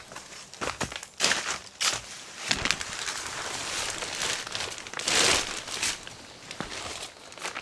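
Irregular rustling and crinkling, with a few sharp crackles and a louder burst of rustling about five seconds in.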